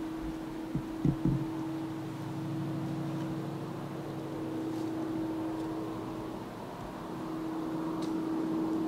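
A steady low mechanical hum with a held tone, rising and falling slightly in level, and two short soft knocks just after a second in.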